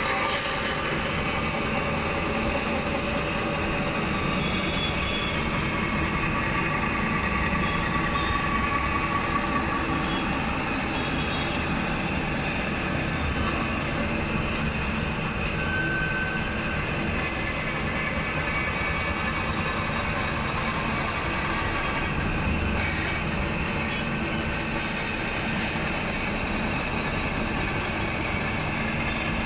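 A machine running steadily at an even level, with a hum of several steady tones.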